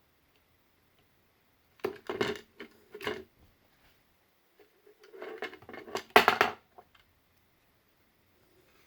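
Clicks and knocks of the PS4 controller's plastic parts being handled, in two short clusters, the loudest a sharp knock about six seconds in.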